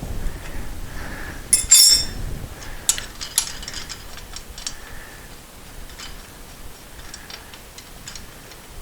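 Metal hand tools clicking and clinking against the motorcycle's cylinder head while a cap over a head nut is worked off. One ringing metallic clink comes a little under two seconds in, a couple of sharper clicks follow about a second later, then only light ticks.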